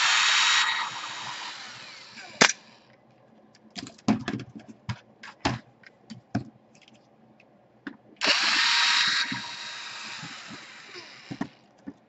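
Cordless drill/driver running in two short bursts to back out laptop hinge screws: one at the start and one about eight seconds in, each lasting about a second and trailing off over the next couple of seconds. Scattered clicks and knocks of handling fall in between.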